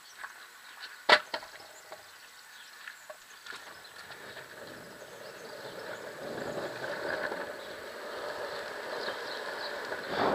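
Longboard wheels rolling over pavement, the rolling noise growing louder as the board gathers speed, after a sharp clack about a second in.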